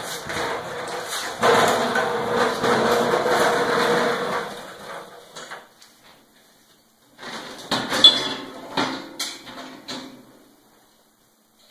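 Casters of a rolling shop stool rumbling across a concrete garage floor for about five seconds. After a pause come a few seconds of sharp metal clanks and rattles as the Brinly lawn sweeper's dump handle and frame are handled.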